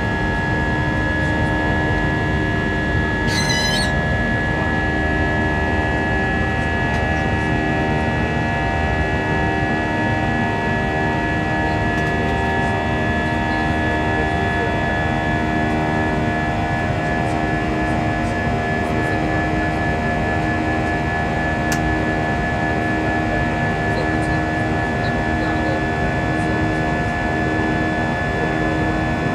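Airbus A320's jet engines during the climb after takeoff, heard inside the cabin: a steady drone with a hum of several steady tones over a low rumble. A brief high-pitched sound comes about three seconds in.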